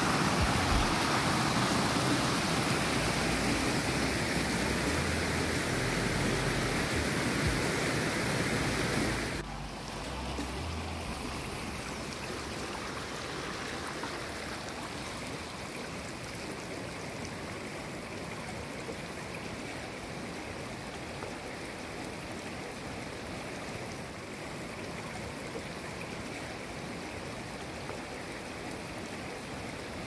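Creek water rushing over rocks and small cascades, running full after rain. About nine seconds in, the louder rush cuts off suddenly to a softer, steady flow.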